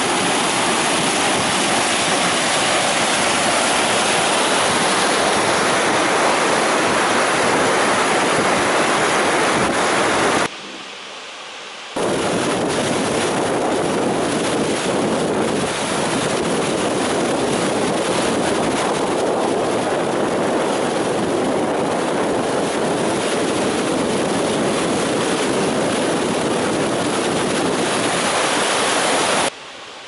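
Mountain waterfall: white water rushing over a rock lip heard up close, a loud, steady, dense rush. It drops to a quieter rush briefly about ten seconds in and again near the end.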